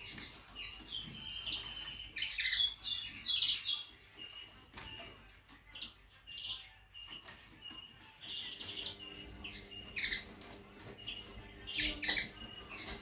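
Common linnet singing in a cage: twittering, buzzy trilled phrases in two main runs, a few scattered notes between them, over a faint low steady hum.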